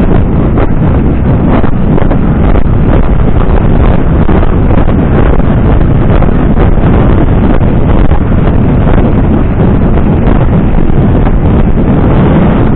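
Loud, steady wind noise buffeting the microphone of a camera carried by a rider at a canter.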